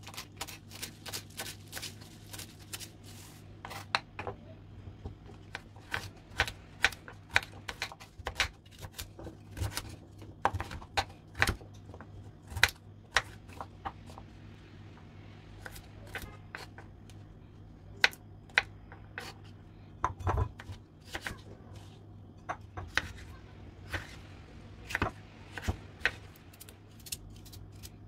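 Kitchen knife cutting celery and celeriac on a wooden cutting board: a long run of irregular sharp chops as the blade goes through the vegetables and knocks the board, with short pauses between runs. A low steady hum lies underneath.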